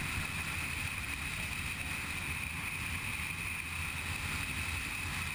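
Honda CG 150 single-cylinder motorcycle running at a steady cruise, heard as a low rumble under wind rushing over the camera's microphone, with a steady high whine above it.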